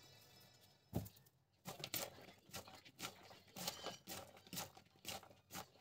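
Raw shredded cabbage, carrot and onion being tossed and squeezed by hand in a plastic bowl: irregular crisp rustling and crunching, with a knock about a second in.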